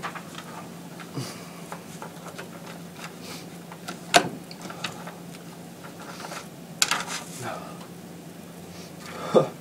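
Sheets of paper being handled and shuffled on a desk, with a few light taps and clicks, the sharpest a little over four seconds in, over a steady low hum.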